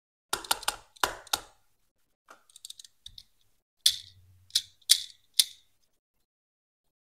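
Sharp clicks and taps of a small die-cast toy car being handled in the fingers: a quick run of clicks, a few fainter ones, then four louder, sharp clicks.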